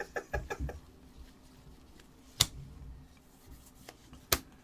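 Bowman baseball cards being handled and flipped through: a quick run of small clicks in the first second, then two sharp clicks about two seconds apart.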